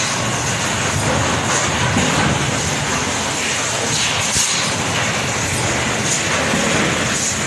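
KEENPRO EM02MC two-cavity PET stretch blow molding machine running, a steady mechanical clatter with short, sharp bursts of hissing compressed air every second or two as its pneumatics and blow cycles exhaust.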